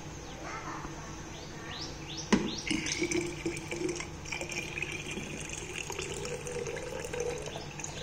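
Water poured into a Morphy Richards coffee maker's water tank: a knock about two seconds in, then a steady splashing pour whose pitch rises slightly as the tank fills.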